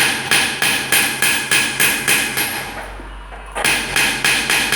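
Rapid, even hammer strikes on metal in goldsmith's work, about four a second, each with a bright ring. The strikes pause for about a second past the middle, then go on at the same pace.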